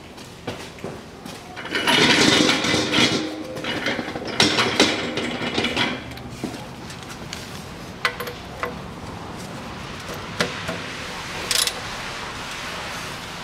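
Metal tools clattering and knocking, loudest in the first half, then a few separate sharp metallic clicks as a socket ratchet is fitted to the oil pan drain plug.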